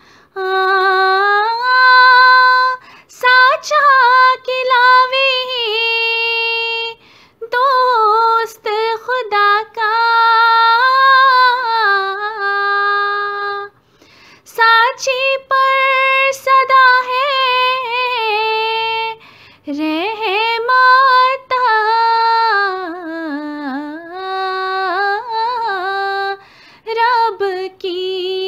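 A woman singing a devotional kalam in a slow, ornamented melody: long drawn-out notes that slide up and down, broken by short pauses between phrases.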